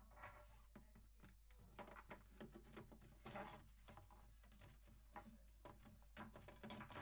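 Near silence, with faint scattered rustles and light knocks of a flexible hose being pushed through a drilled hole in a kitchen cabinet panel.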